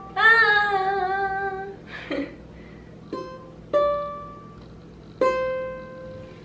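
Ukulele played haltingly by a beginner: three separate plucked notes in the second half, each left to ring and fade. Near the start a voice sings one wavering note for about a second and a half.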